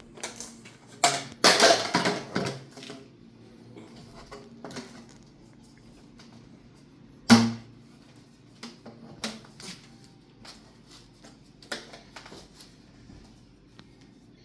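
Objects being handled: scattered clicks and knocks, a loud scraping rustle about a second in, and one sharp knock about halfway through.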